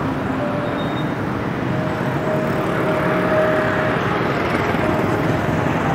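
Steady street traffic and road noise heard while riding a bicycle, with a faint humming tone that comes and goes.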